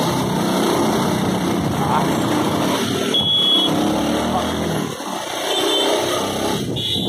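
Motorbike ride through slow, dense road traffic: a steady mix of car and scooter engines running close by. A short high beep sounds about three seconds in and again near six seconds.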